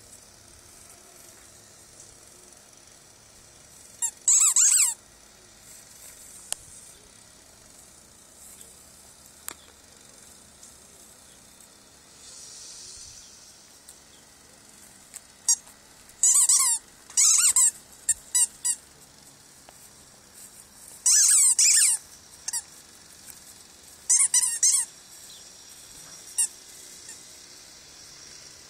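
Rubber squeaky toy squeaking as a puppy chews it, in four bursts of quick squeaks: a short one about four seconds in, a run around sixteen to eighteen seconds, a longer one around twenty-one seconds, and another around twenty-four seconds. Between bursts only a faint outdoor hiss.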